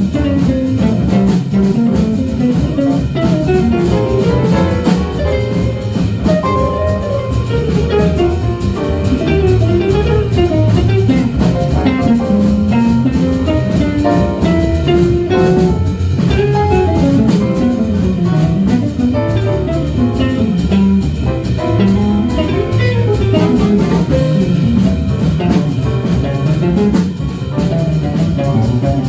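Live jazz-soul band playing, a melodic guitar line winding up and down over bass and drum kit.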